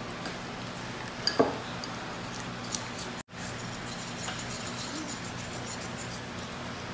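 Wire whisk beating a wet egg yolk batter in a glass mixing bowl, the wires clinking and ticking against the glass, with one sharp clink about a second and a half in. The sound cuts out for an instant near the middle, over a low steady hum.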